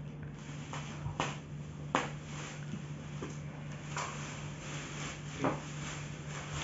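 Plastic wrapping rustling and crinkling as it is pulled off a padded office-chair part, with a few sharper crackles, over a steady low hum.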